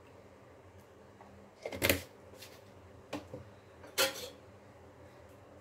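A few sharp clinks and knocks of kitchenware at the pressure cooker: a louder clink about two seconds in and another about four seconds in, with lighter ticks between.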